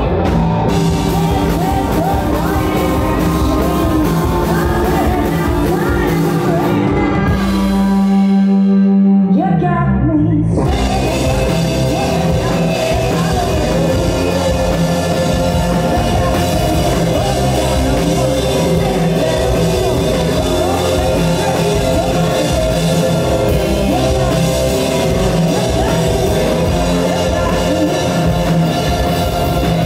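A rock band playing live, with a woman singing lead over keyboard, electric guitar and drums. About eight seconds in, the band briefly drops to a single held low note that slides down, then the full band comes back in.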